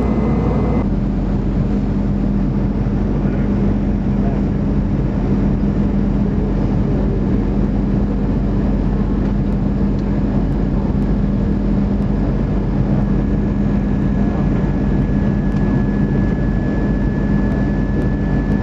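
Steady roar of engines and rushing air inside a Boeing 747's passenger cabin during its descent, with a constant low hum under it.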